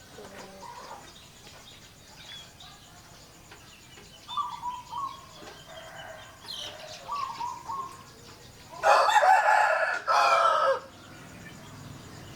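Chickens clucking softly a few times, then a rooster crows loudly once, a call of about two seconds with a short break in it.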